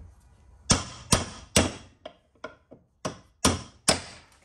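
Hammer blows on a steel punch, driving a seized bushing out of a CFMOTO ATV/UTV A-arm: two groups of three hard metallic strikes, with a few lighter taps in between.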